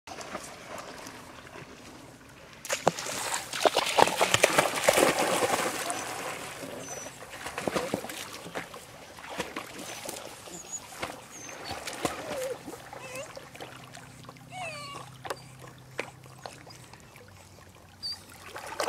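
A puppy splashing through shallow water, loud and choppy for several seconds starting about three seconds in, then quieter sloshing as it swims.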